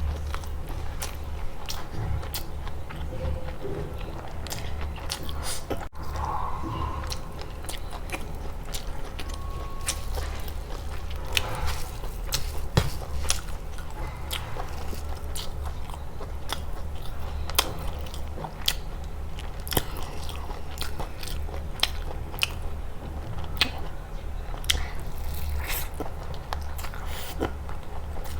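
Close-miked eating: biting and chewing with wet mouth sounds and many short, sharp crunchy clicks, over a steady low hum.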